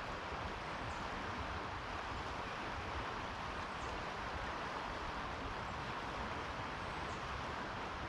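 Steady rushing of flowing river water, with an uneven low wind rumble underneath.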